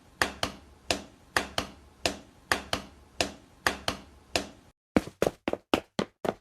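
A steady series of sharp knocks, about two to three a second. They break off briefly near the end and come back faster, about four a second.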